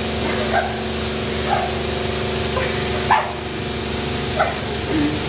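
High-pressure jet wash lance spraying onto a person: a steady hiss over the hum of the wash machine's pump. On top come short pained yelps, about six of them, the sharpest about three seconds in.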